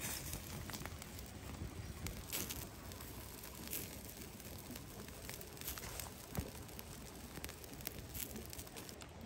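Campfire embers crackling, with a few sharp pops and ticks scattered through over a steady low background rumble.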